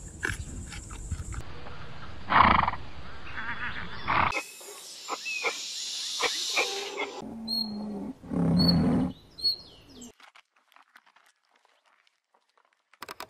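A string of short animal calls spliced one after another, changing abruptly from clip to clip. The loudest is a brief call about two and a half seconds in, with another loud call about eight seconds in. The last few seconds are nearly silent.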